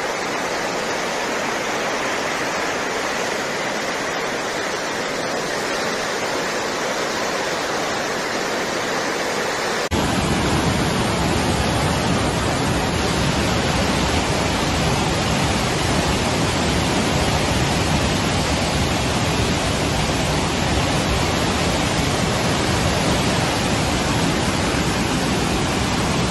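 Muddy floodwater rushing in a fast torrent, a loud, steady rush of water. About ten seconds in it cuts to a louder, deeper rush with more low rumble.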